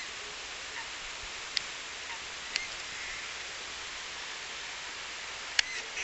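Steady hiss of water running in a thin sheet over a concrete reservoir spillway. A few short sharp sounds stand out over it, the loudest near the end.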